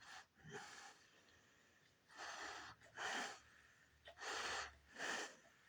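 Close, noisy breaths: short hissing huffs, the later four in two pairs about a second apart.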